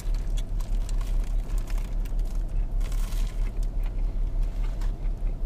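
Steady low hum of a car engine idling, heard from inside the cabin, with scattered small clicks and crackles from eating and a brief rustle of paper wrapping about three seconds in.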